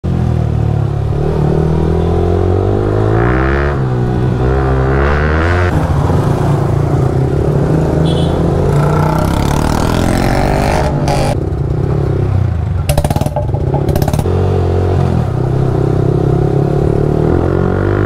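Yamaha R15 V3's single-cylinder engine running through an aftermarket full-system Akrapovic exhaust at low road speed, its note rising and falling with the throttle. A few sharp cracks come a little past the middle.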